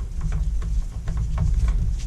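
Light clicks and taps of small plastic and metal parts being handled while a strimmer's fuel tank and fuel lines are worked on, over a steady low rumble.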